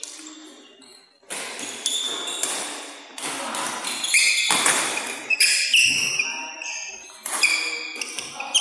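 Badminton rally starting about a second in: rackets striking the shuttlecock, shoes squeaking on the court floor and the thuds of quick footwork.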